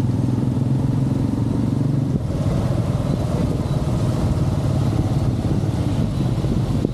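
A small motor vehicle engine running steadily close by, with a slight change in its pitch about two seconds in.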